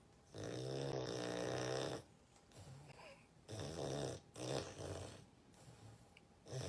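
A sleeping dog snoring: one long, pitched snore lasting well over a second, then after a pause a couple of shorter snores, and another beginning near the end.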